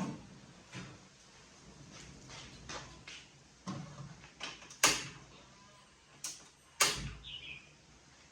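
Irregular knocks and clatters of objects being handled, with two loud sharp knocks about five and seven seconds in.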